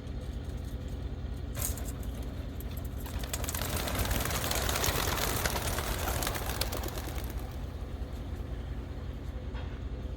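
A crate of racing pigeons released: a sharp clank about a second and a half in, then the clatter of many wings as the flock takes off, swelling and fading over about four seconds, over the steady low hum of an idling vehicle engine.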